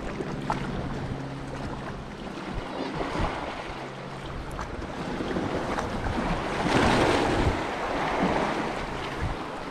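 Sea swell washing against the rocks at the foot of the ledge, building into a larger surge that breaks into foam about seven seconds in, the loudest moment.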